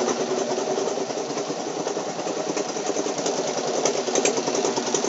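Plastic-sack washing machine (gibrik) running steadily with a fast, even mechanical rattle.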